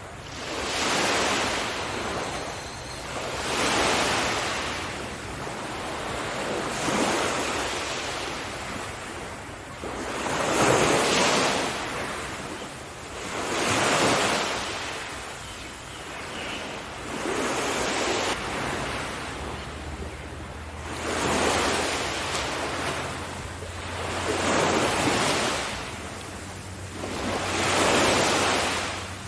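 Sea waves surging and receding, one rolling wash of surf noise about every three seconds.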